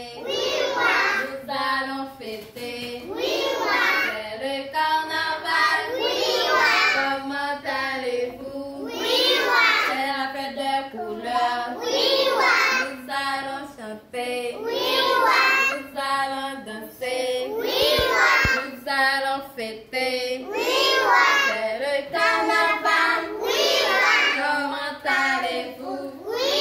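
A group of young children singing a song together, phrase after phrase.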